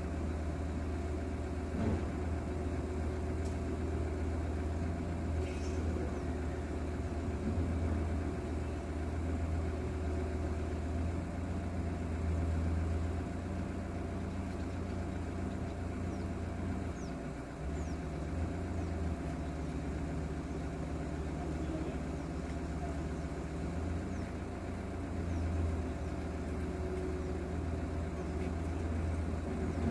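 Engine idling steadily, a low hum heard from inside a car's cabin.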